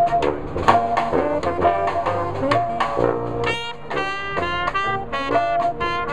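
New Orleans-style brass band playing jazz: saxophones, trumpets and trombone over a sousaphone bass line and a steady snare drum beat. A bright run of high horn notes comes about halfway through.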